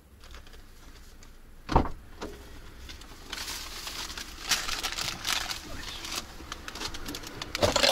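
Kei camper van's door opening with a thump about two seconds in, then a person climbing into the driver's seat with a plastic shopping bag rustling and crinkling, and another thump near the end.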